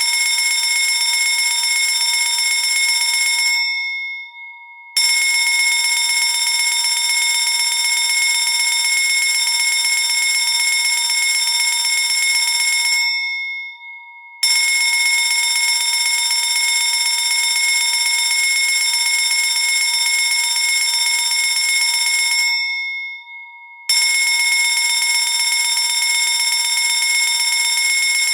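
Electric fire alarm bell ringing loudly and continuously in long bursts of about eight to nine seconds. Twice it shuts off, its ring dying away over about a second, then starts again abruptly.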